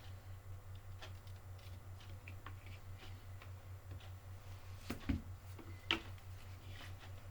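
Small clicks and taps from handling parts and tools at a workbench over a steady low hum, with two sharper clicks about five and six seconds in.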